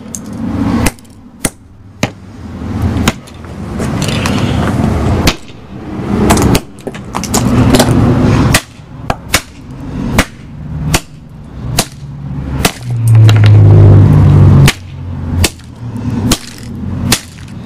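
Repeated, irregular strikes of a metal-handled tool smashing a plastic DVD case on gravel, with cracks and knocks of plastic and stones, sometimes several a second. A low steady hum grows loud for about two seconds in the last part.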